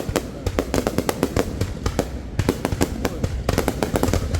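Aerial fireworks display bursting overhead: a dense run of sharp bangs and crackles, several a second, over a steady low rumble.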